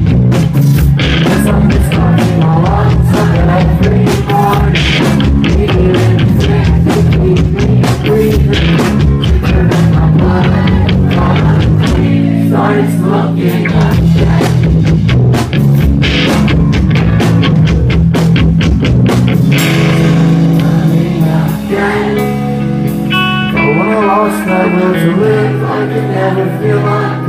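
Rock band playing loud live, electric guitars and drums heard through a club PA from among the crowd. About twenty seconds in the drums drop away, leaving guitars picking single notes.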